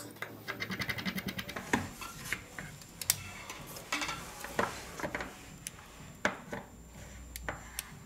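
Small clicks and taps of hand tools and phone parts being handled during a phone repair, opening with a quick run of about ten regular clicks.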